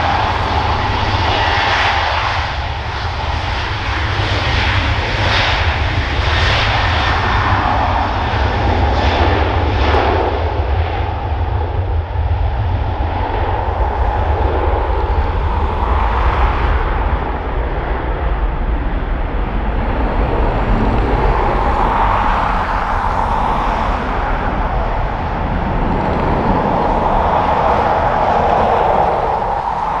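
Airliner engines running loud, swelling and easing several times, under heavy wind rumble on the microphone.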